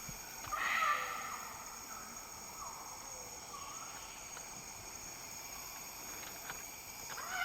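Rainforest ambience with insects buzzing steadily, and one short harsh rustling burst about half a second in.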